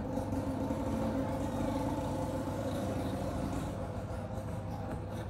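Steady low mechanical drone with a few held tones, unchanging throughout.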